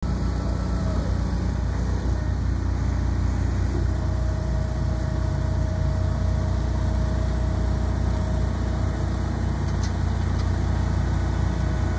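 Heavy engines running steadily: a semi truck's diesel and a wheeled shed-moving machine working by a storage building. A faint steady whine rides over the engine hum from about four seconds in until near the end.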